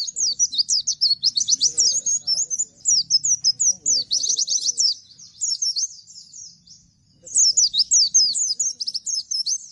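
A white-eye of the 'Bustomi' pleci type singing in long, rapid runs of high, downward-sliding notes. This is the fast, continuous 'nembak' delivery. The runs break off for a lull about five seconds in and resume a couple of seconds later.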